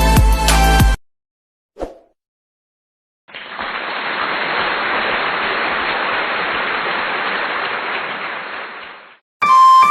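Electronic background music cuts off about a second in. After a pause and a brief click, a steady hiss runs for about six seconds and fades out, then music starts again near the end.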